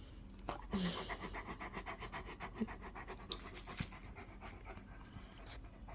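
A Rottweiler panting rapidly, several short breaths a second, with one brief louder burst of noise midway through.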